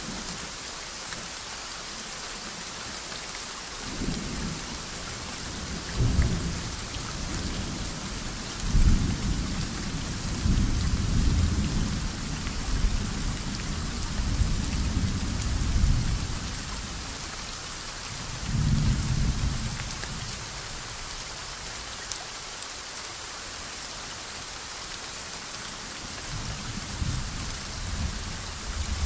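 Steady soft rain with thunder rumbling several times; the longest roll runs for about seven seconds in the middle, and a shorter one follows a few seconds later.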